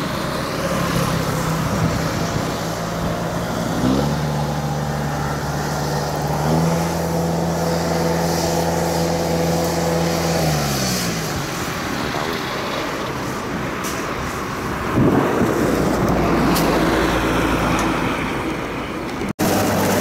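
Kubota DC70 combine harvester's diesel engine running, its pitch dropping about four seconds in, climbing again a couple of seconds later and sagging off around ten seconds. A louder rush of machine noise comes in near fifteen seconds.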